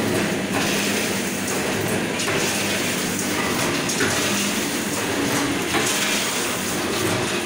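Automatic vertical sachet-packing machine running, clattering steadily with a regular beat of roughly one stroke a second as it forms, fills and seals snack packets. The machine has just been repaired and is working properly again.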